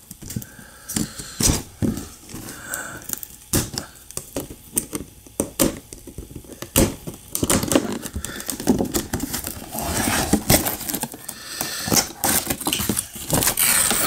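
Toy packaging being opened by hand: sharp clicks and plastic crackling as a small screwdriver slits tape on a clear plastic window box, turning into denser rustling of the cardboard box in the second half.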